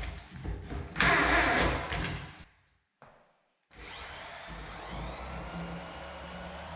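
Loud knocks and a short harsh rasp, then, after a brief break, a Bosch drill's motor spins up and runs steadily at speed.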